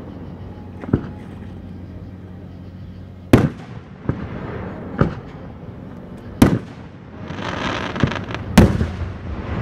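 Aerial firework shells bursting: about seven sharp bangs at uneven intervals, the loudest a little past a third of the way in and again near the end.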